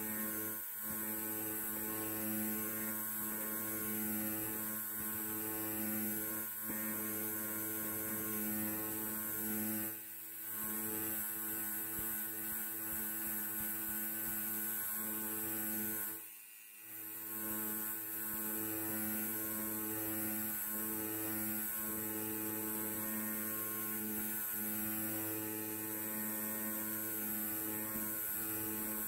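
Electric hair clipper running with a steady, even buzz. The buzz briefly drops in level twice, about ten seconds in and again around sixteen to seventeen seconds in.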